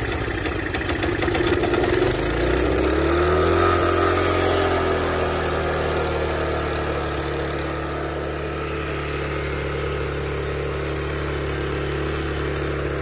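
Small snowblower engine running just after the choke is switched off. About three seconds in its speed picks up, then it holds a steady, fast pace. The owner finds this engine speed too high even at the lowest throttle setting and wonders about a runaway throttle.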